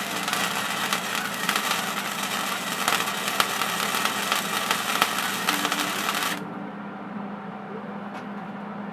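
Flux-cored wire welder laying a bead: a dense, even crackle that cuts off suddenly about six seconds in, with a steady low hum underneath that carries on after it.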